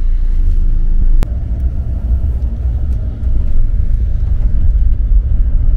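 Low rumble of a shuttle bus driving, heard from inside the cabin, with a single sharp click about a second in.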